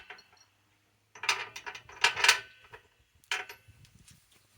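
Loose metal lag screws clinking and rattling as they are handled, in three short clattery bursts.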